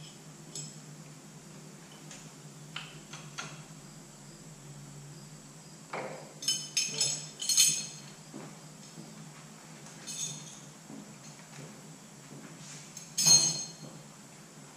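Metal tools and parts clinking and clanking against steel as they are handled, with scattered sharp clinks, a cluster of them about halfway through and the loudest clank near the end, over a steady low hum.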